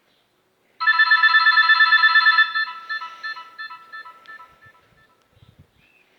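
Nokia 6101 mobile phone playing a polyphonic ringtone: a rapid run of high, repeated electronic notes, about eight a second, starting just under a second in, then fading away and stopping about five seconds in.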